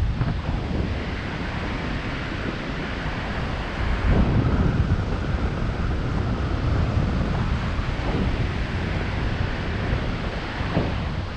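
Wind buffeting the microphone: a steady, rushing noise heaviest in the low end, swelling in a gust about four seconds in.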